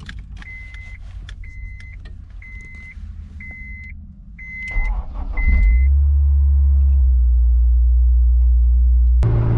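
Honda S2000 being started: a warning chime beeps six times, about once a second, with the key on, then the starter cranks about five seconds in and the four-cylinder engine catches and settles into a steady idle.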